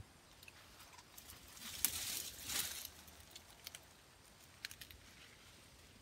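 Leaves and twigs rustling, with a few small clicks and snaps, as a hand moves through dense bushes; the rustle is loudest about two seconds in.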